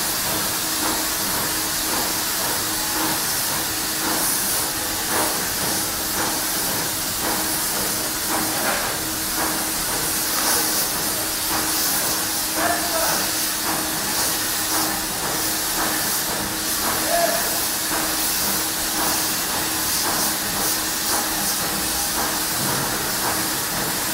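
Polyurea spray gun spraying the coating in a continuous high-pitched hiss, over a steady low hum.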